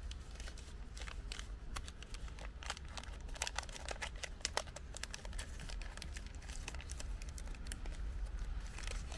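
Wrapping paper crinkling and rustling as a small present is unwrapped by hand, a dense run of small irregular crackles, over a low steady rumble.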